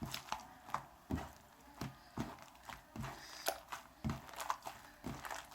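Homemade slime being kneaded and worked by hand, giving irregular soft squelches and sticky clicks.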